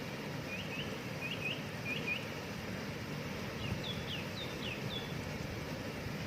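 Steady rushing of a waterfall, with a small bird calling over it: short upslurred chirps in quick pairs during the first two seconds, then a run of higher, falling notes a little past the middle.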